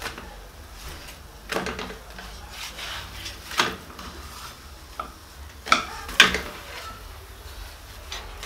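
Wooden and metal spatulas knocking and scraping against a pan and plate while cooked chapatis are handled: about five sharp clacks, the loudest two close together a little past the middle, over a steady low hum.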